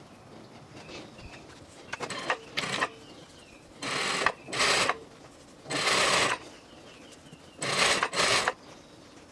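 Sewing machine stitching a seam in several short runs of about half a second each, stopping and starting, with faint bird chirps in the background.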